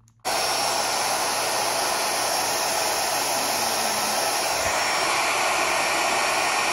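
Handheld hair dryer switched on and blowing steadily: it starts suddenly about a quarter second in, then a constant even rush of air.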